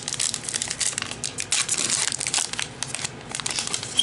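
Plastic-foil wrapper of a trading card pack crinkling and tearing as it is worked open by hand, a dense run of sharp crackles that is hard going: these packs don't open too well.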